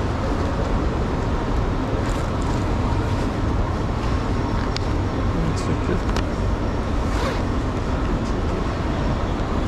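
Steady background noise of a busy railway station concourse, with distant voices and a few short clicks around the middle.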